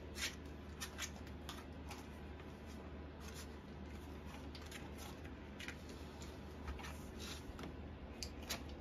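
Bull terrier puppies' paws and claws scrabbling on the wooden floor of their pen: faint, scattered light clicks and scratches over a steady low hum.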